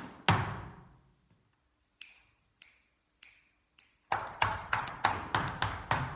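Sean nós dance shoes striking a wooden floor. One heavy stamp rings out just after the start, then four light, evenly spaced taps follow. From about four seconds in comes a fast, rhythmic run of reel-time steps.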